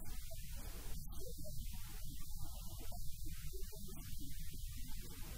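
Steady low electrical mains hum in the audio track.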